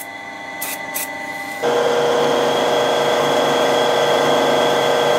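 A few light clicks, then about a second and a half in a milling machine's spindle starts and runs steadily with a constant whine, drilling a lubricated hole to repair a stripped head-stud thread for a thread insert.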